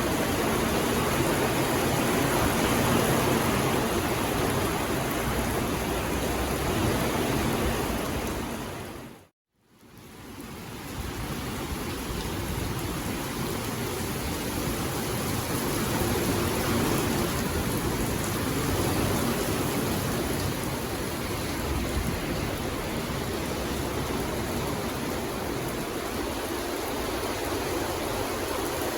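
Steady rain falling, a dense even hiss. About nine seconds in it fades briefly to silence and then fades back in.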